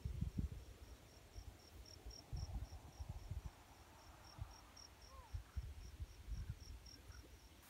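An insect chirping steadily at a high pitch, about four chirps a second, over faint irregular low rumbles and bumps on the microphone.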